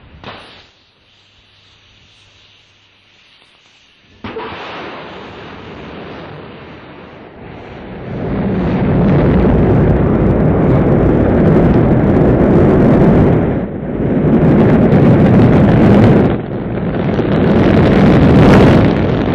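Rocket launch: a sudden onset of engine noise about four seconds in, building from about eight seconds into loud, deep, continuous rocket-engine noise of liftoff and ascent, which dips briefly twice.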